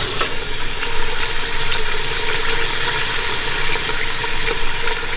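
Water running steadily from a tap into a large stockpot, a continuous rushing with a steady humming tone underneath.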